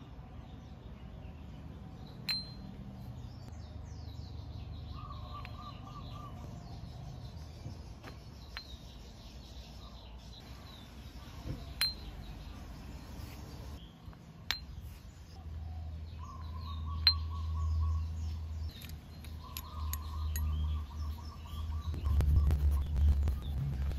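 Scooter variator rollers being set one at a time into the ramps of an aluminium variator housing: sharp, lightly ringing clinks a few seconds apart. Birds chirp in the background, and a low rumbling noise grows louder near the end.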